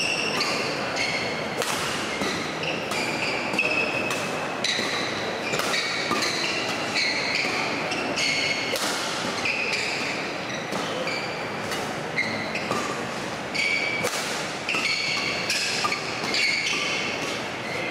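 Badminton rackets hitting a shuttlecock in a fast rally, sharp hits coming about every half second to a second, mixed with short squeaks of court shoes on the hall floor.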